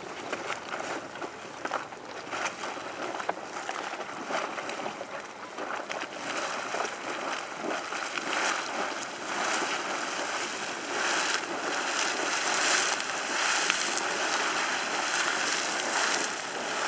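Super Frying Pan Geyser starting to erupt: boiling water bubbling and splashing in irregular bursts, growing gradually louder as the eruption builds.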